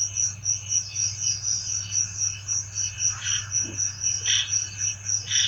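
Night insects chirping in a high, even rhythm of about four pulses a second, over a steady low hum.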